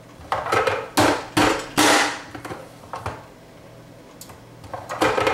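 Plastic Vidalia Chop Wizard dicer's hinged lid being slammed down to force a green bell pepper through its dicing grid: about five hard whacks in the first two seconds, each ringing briefly, then a few lighter knocks, and more whacks starting near the end.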